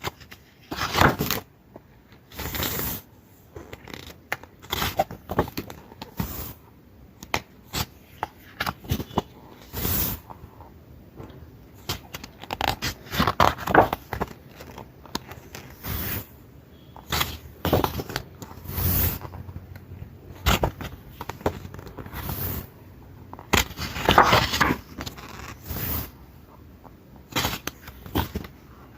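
A paper album and its packaging being handled: repeated short rustles, scrapes and light clicks of paper and card, as the pages and inserts are turned over and looked through.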